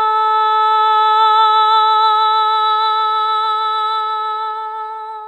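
A voice holding one long sung note at a single pitch with a slight wobble, easing off slightly toward the end, like a drawn-out 'nooo' from a meme sound clip.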